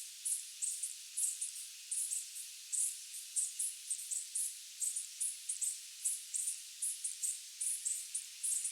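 Night insects chirping in a steady, rhythmic chorus: short high-pitched chirps at about three a second over a constant high hiss.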